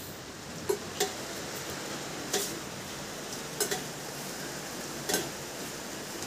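Water dripping from a leaking roof into metal pots: about six sharp plinks at irregular intervals over a steady hiss of rain.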